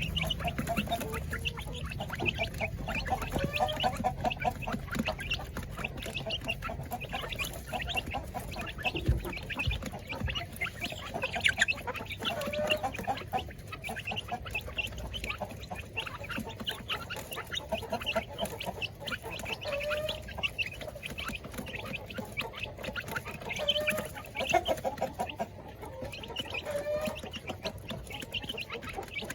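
Flock of Indonesian kampung chickens and laying hens clucking, with many short calls overlapping throughout.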